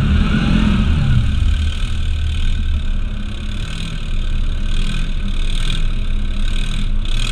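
An ATV engine running steadily during a trail ride, its low drone a little stronger for the first couple of seconds and then easing.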